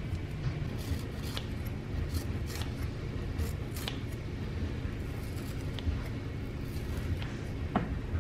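Short, sharp clicks and snips of hands-on food preparation, several of them in the first four seconds, over a steady low hum.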